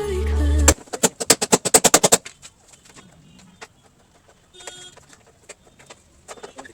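Background music cuts off, then a rapid run of sharp knocks, about nine a second, lasting about a second and a half. It is followed by quieter scattered clicks and a short pitched chirp about halfway through.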